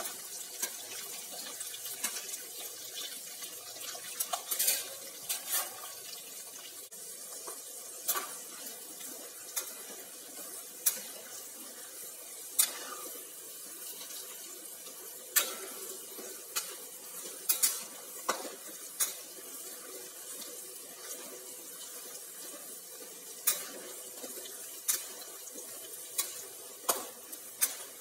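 Peanuts, red chillies and garlic frying in hot oil in a steel wok, a steady sizzling hiss, with a metal spatula scraping and clinking against the wok at irregular moments as they are stirred. The peanuts are being fried until they change colour.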